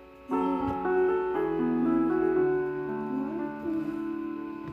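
Background piano music: a melody of held notes, a new phrase starting just after the beginning.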